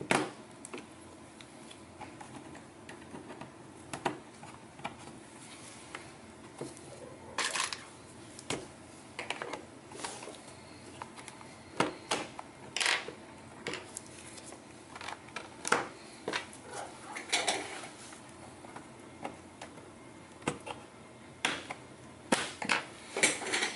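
Plastic pry tool working along the seam of an Asus GL502VT laptop's plastic case: irregular sharp clicks and snaps with a few short scrapes as the case is pried open.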